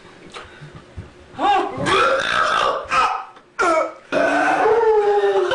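Men belching deliberately, several loud burps in a row: one about a second and a half in, a short one a little later, then a long, drawn-out burp starting about four seconds in.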